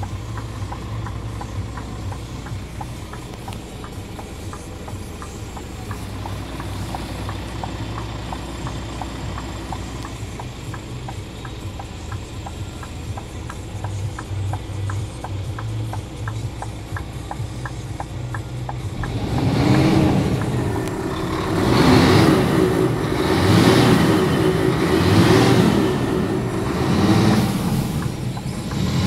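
Scania R490 truck's inline-six diesel engine idling steadily with a regular light ticking. About two-thirds of the way in it is revved up and down repeatedly, a swell every second and a half to two seconds.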